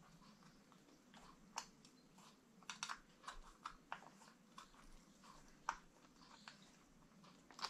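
Faint, scattered small clicks and ticks of fingers handling a fan's thin wire and plastic plug while pushing it onto the pins of an RC car's ESC, the sharpest click a little before the end.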